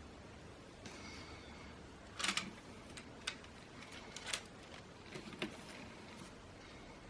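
Sharp plastic clicks and clacks, about five of them in the middle few seconds, the first the loudest, over a faint steady hiss: Lego Technic parts being handled and moved.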